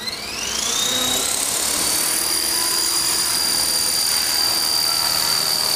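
Small electric RC helicopter spooling up on the ground: the motor and rotor whine rises steadily in pitch for about two seconds, then holds a steady high whine at speed.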